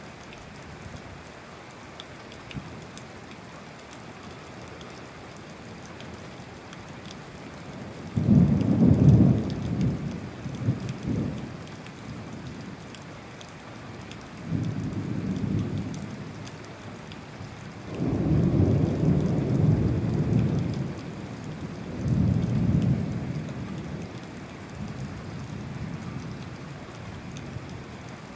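Steady rain with rolling thunder: a rumble that starts suddenly about eight seconds in and is the loudest, followed by three more rumbles over the next fifteen seconds.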